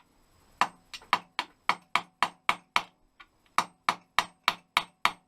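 Hammer striking a seized bolt on a Honda Bros motorcycle, freshly heated with a blow lamp, in a quick even run of blows, about four a second, with a short pause about halfway through, as he tries to drive the bolt out; it does not move.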